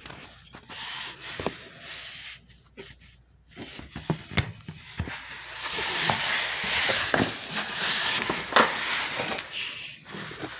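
Hissing, rubbing noise with scattered clicks and knocks, loudest from about six to nine seconds in.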